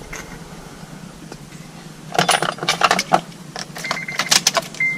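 Metal jingling and clinking, like a set of keys being handled, a cluster of sharp clicks about two seconds in; near the end a high steady electronic beep from the car starts.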